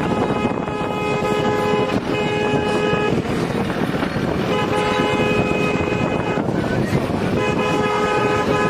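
A car horn sounds four long honks, each about one to two seconds, over steady road and engine noise from a car on the move.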